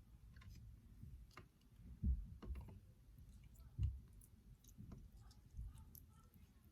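Faint, scattered light clicks and taps of a utensil against a cup as a slime-kit mixture is stirred, with a couple of soft thumps about two and four seconds in.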